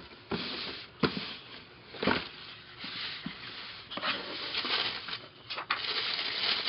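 Packaging rustling and crinkling as football boots are unwrapped and lifted from their box, with a couple of sharp knocks about one and two seconds in.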